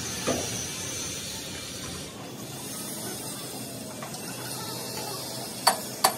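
Steady hiss, then two sharp hammer blows on metal near the end.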